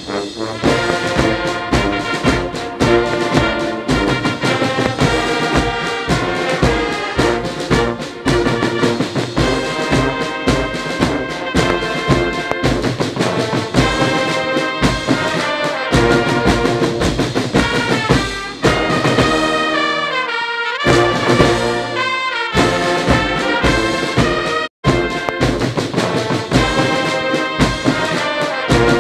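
Brass band music with trumpets and trombones over a steady beat. The sound drops out for an instant near the end.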